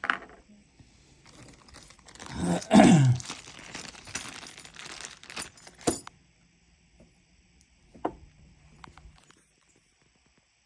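Metal parts and a hand tool rattling and clicking while solar cable is worked into an MC4 connector, most dense and loudest in the first half, then a sharp click and a few scattered ticks.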